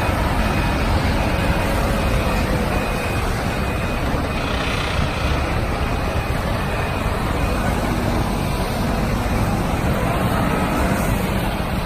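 Self-loading concrete mixer truck's diesel engine running steadily, with its reversing alarm beeping about once a second until about two-thirds of the way through.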